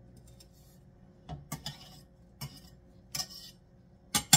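A kitchen knife scraping and tapping chopped jalapeños and garlic off a cutting board into a large cooking pot: a few short scrapes and clicks, ending in two sharp knocks, the loudest, near the end.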